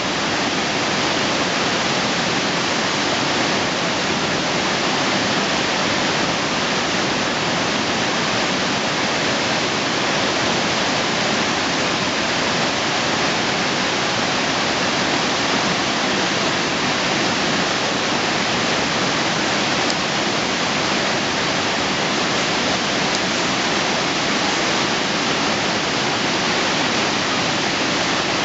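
San Rafael Falls on the Coca River: the steady, unbroken rush of a large waterfall.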